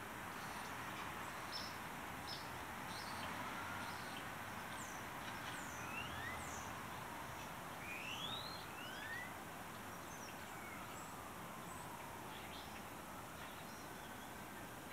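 Wild birds calling in a winter dawn chorus: scattered short, high chirps and quick rising or falling notes, busiest in the middle, over a steady background rush. A faint tone slowly rises and falls a few times underneath.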